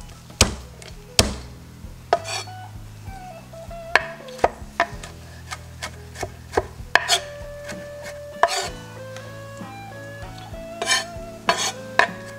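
Chef's knife chopping garlic cloves on a wooden cutting board: a dozen or more sharp, irregularly spaced knocks of the blade against the board, over background music with held notes.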